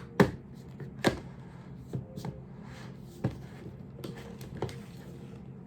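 Hard clicks and taps from handling the plastic parts of an essential oil diffuser: about five sharp knocks, roughly a second apart, over a faint steady low hum.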